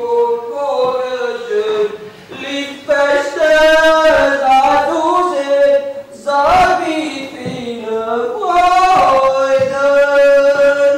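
A man singing unaccompanied in several phrases of long, held notes.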